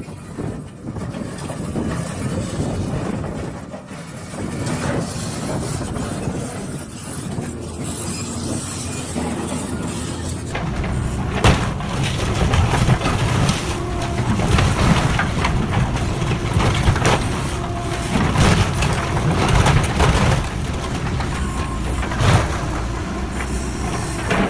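Heavy vehicle machinery running with a rumbling, unpitched noise. Partway through the sound changes to a louder stretch with several sharp knocks or bangs.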